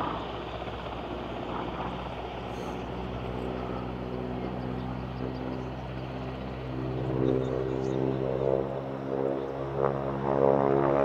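North American SNJ-3 Texan's Pratt & Whitney R-1340 Wasp nine-cylinder radial engine and propeller droning in flight, growing louder and clearer over the second half.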